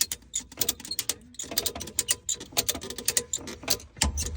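A hand ratchet clicking quickly and irregularly, its pawl ticking as the handle is worked on a flywheel bolt.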